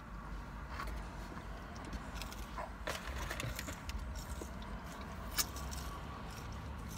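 Steady low rumble of a car cabin, with a few scattered soft clicks and taps from handling a foam takeout container and a drink cup while eating and sipping through a straw.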